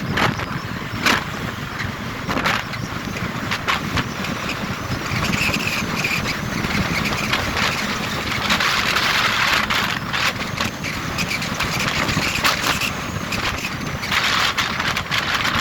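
Wind buffeting the microphone and road noise from a moving motorcycle: a steady rush with frequent short crackles.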